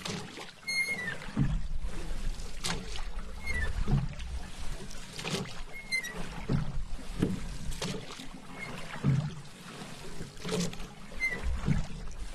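Paddle strokes in water, a splash and pull roughly every second and a half in a steady rhythm, over soft lapping. A faint short squeak comes every couple of strokes.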